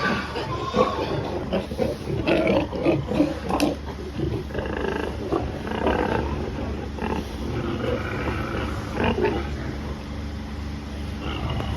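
Pigs calling in short, irregular bursts over a steady low hum.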